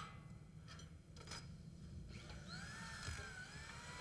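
Faint clicks of steel tubing parts being handled, then a power drill running from about two seconds in, its pitch rising and falling.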